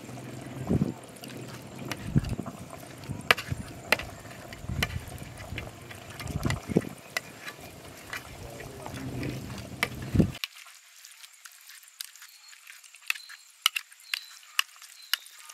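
Perforated metal skimmer mashing soft cooked pumpkin on a metal tray: wet squishing with irregular clicks and taps of metal on metal. About ten seconds in the low soft thuds drop away, leaving only light clicks.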